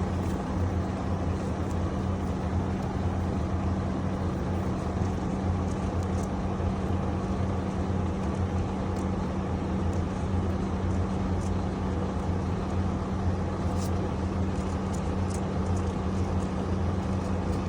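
Steady low machine hum with a constant pitch, with a few faint light clicks of parts being handled about three-quarters of the way through.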